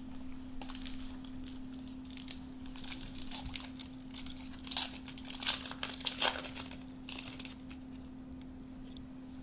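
Bowman baseball card pack wrapper crinkling and tearing as it is opened, crackling on and off, loudest in the middle and dying away about three-quarters of the way through.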